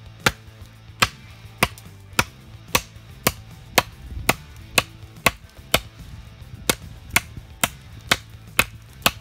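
A baton knocking on the spine of a prototype D2-steel bushcraft knife, driving the blade through a fresh olive branch on a stump to split it. Sharp knocks come about twice a second, with a short pause a little after halfway.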